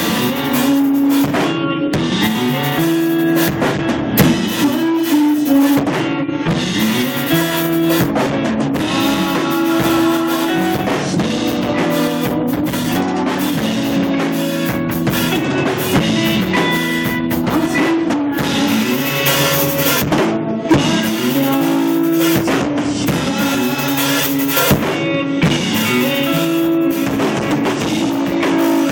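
Live rock band playing: drum kit and electric guitar.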